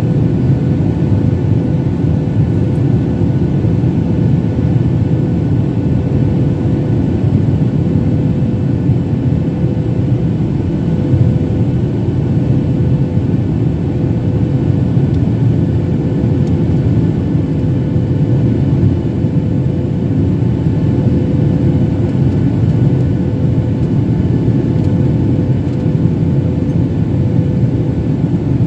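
Boeing 737-800 cabin noise in flight: the steady, unbroken rumble of the CFM56-7B engines and airflow, with a constant hum running through it.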